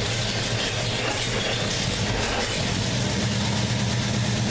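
1967 Chevelle's carbureted V8 idling steadily on a newly installed distributor, with the ignition timing not yet set. Its note changes slightly a little over halfway through.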